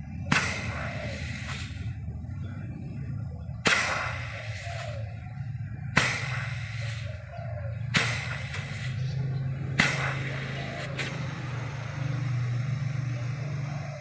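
LG inverter refrigerator compressor running with a low steady hum while gas is flushed out of an open cut pipe: a hand held over the pipe end lets it out in five sudden spurts about two seconds apart, each trailing off in a hiss. This is the flush that clears the leftover R600 refrigerant before brazing.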